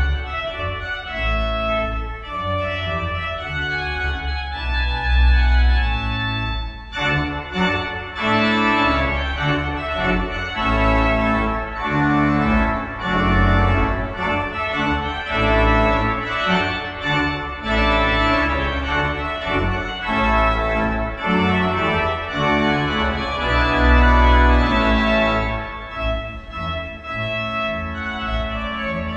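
Organ music: a voluntary played on full chords over a moving bass line, with fuller upper registers from about seven seconds in.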